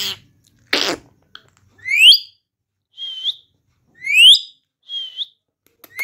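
Rose-ringed parakeet whistling a two-part phrase twice: a loud rising whistle, then a shorter level whistle about a second later. Two short breathy bursts come within the first second.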